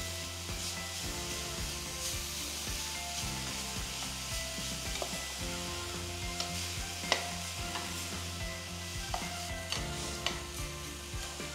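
Grated coconut, sugar and ghee sizzling in a stainless-steel frying pan while a wooden spatula stirs and scrapes it, cooking the filling as the sugar dissolves. A few sharp taps of the spatula against the pan, mostly in the second half.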